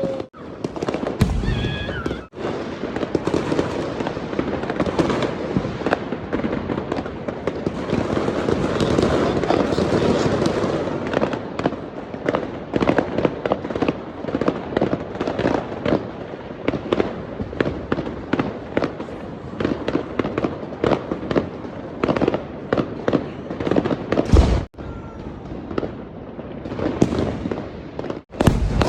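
Fireworks going off: a dense, continuous crackle of many small rapid bursts, with heavy booms about a second in and twice near the end. Brief falling whistles come in a second or two in and again shortly before the end.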